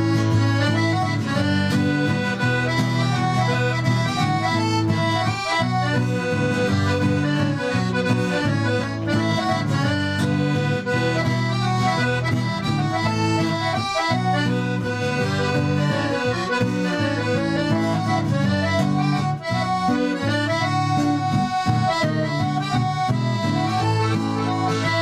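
Piano accordion playing a folk dance tune with melody and bass chords, accompanied by acoustic guitar. The music runs continuously.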